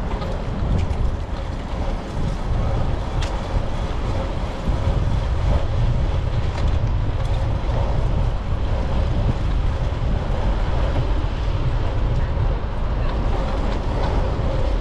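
Steady wind rushing over a GoPro Hero 9's microphone while riding a bicycle, a low rumbling noise mixed with tyre and road noise.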